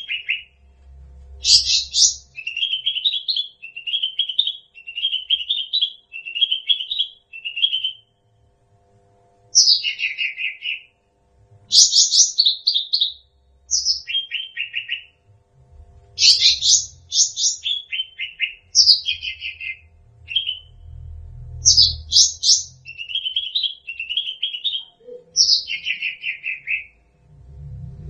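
Cucak rante song: repeated phrases of high, downward-sweeping whistled notes, some running into quick strings of short chirps, with short pauses between phrases.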